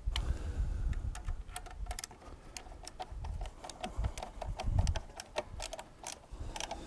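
A Phillips screwdriver driving a coarse-threaded screw into the back of a DishPro Plus LNBF, giving a run of quick, irregular clicks, several a second.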